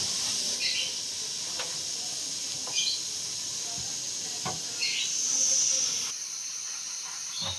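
Pressure cooker on a parabolic solar cooker hissing steam steadily from its lid valve, its contents come to the boil; the hiss swells a little about five seconds in.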